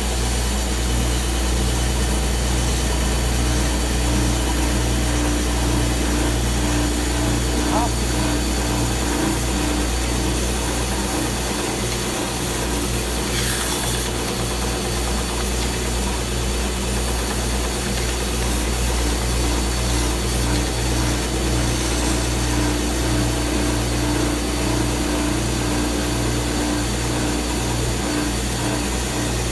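Stationary power sander running steadily, its tone shifting now and then as the wooden box is worked against it.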